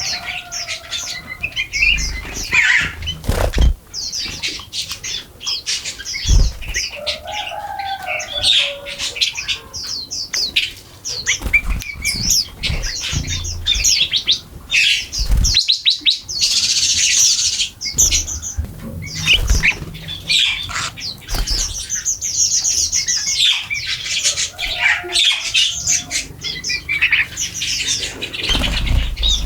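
A flock of small birds chirping busily in quick high notes while feeding, with a few lower, sliding calls, flutters of wings, and occasional low thumps and knocks.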